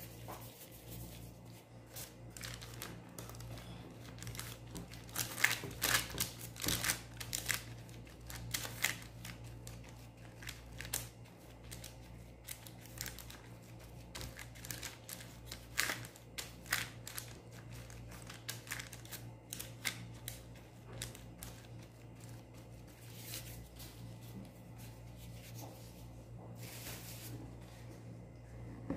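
Baking paper and a plastic food glove crinkling and rustling in irregular bursts as a gloved hand places and pats out rounds of pizza dough on a paper-lined baking tray, over a steady low hum.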